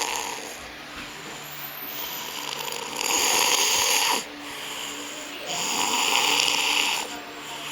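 A man snoring in a steady rhythm, about one breath every two and a half seconds. Each breath pairs a low, pitched snore with a noisier rush of air, three cycles in all.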